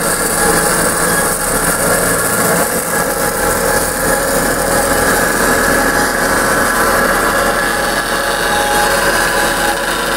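Amada 10-inch horizontal automatic band saw running under power, a steady machine hum with several constant whining tones and a high hiss.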